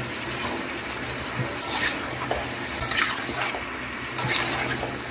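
Chicken pieces frying in oil in an aluminium kadai, a steady sizzle, with a spatula scraping and stirring against the pan about three times.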